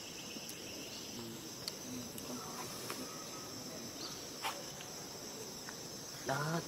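Steady, high-pitched chorus of forest insects. Near the end comes a short pitched call, the loudest moment.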